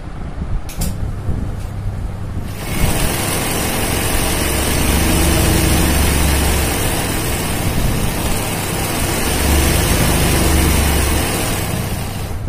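Sewing machine set up for free-motion embroidery running, its needle stitching a zigzag satin stitch through hooped fabric. It runs quieter for the first couple of seconds, then louder and steady, easing off near the end.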